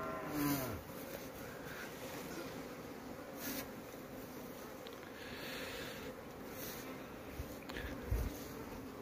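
Steady hum of many Asian honey bees (Apis cerana indica) flying around the hives of an apiary. A brief pitched call sounds over it in the first half-second, and a few soft low knocks come later.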